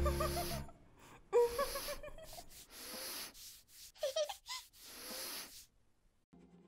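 Cartoon snoring sound effect: about five breathy snores in a row, some with a wobbling, whistle-like tone.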